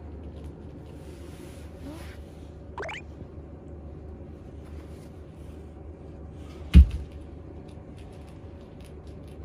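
Steady low indoor hum, with a brief rising squeak about three seconds in and one loud, heavy thump about seven seconds in.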